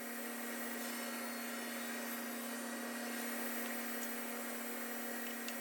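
Power saw running steadily, cutting plywood squares in half diagonally, with an unbroken hum and hiss.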